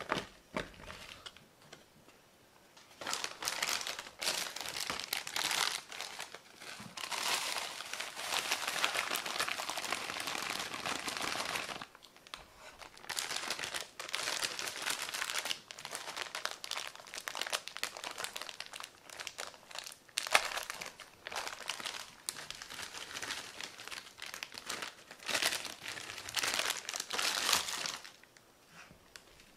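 Plastic bag of brown sugar crinkling and rustling as it is handled and sugar is scooped out with a mug, on and off for most of the stretch, starting a few seconds in.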